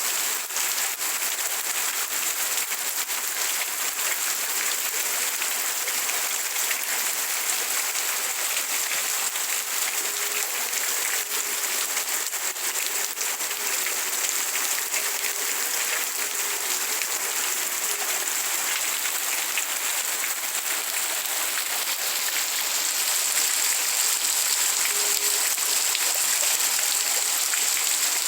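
Steady rain falling, a dense hiss of countless drops, growing a little louder near the end.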